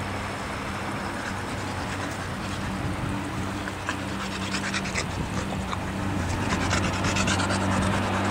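A steady low motor hum over a noisy rush, with a few faint high ticks in the second half.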